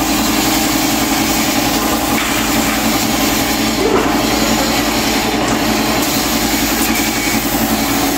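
Air compressor running steadily, with the hiss of a gravity-feed spray gun spraying clear coat.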